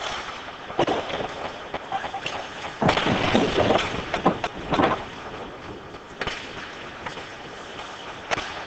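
Ice hockey play close to the glass: skates scraping and sticks clacking. From about three to five seconds in there is a run of loud thuds and rattles as players battle against the boards and glass.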